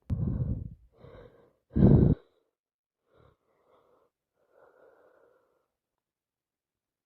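Heavy breathing from a person with a head cold: two loud breaths about two seconds apart with a fainter one between, then several faint breaths.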